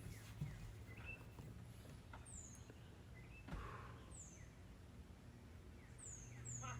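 Near silence broken by a bird's faint, high chirps, four short calls that each slide downward in pitch.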